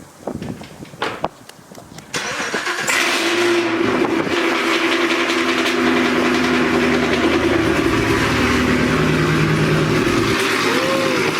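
Chevrolet Camaro ZL1's supercharged V8 starting about two seconds in, after a few clicks and knocks, then running loud and steady.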